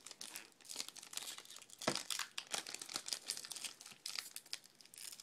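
Crinkling and tearing of a sealed baseball-card pack wrapper being pulled open, with a sharp snap about two seconds in. The pack's seal is heavily glued.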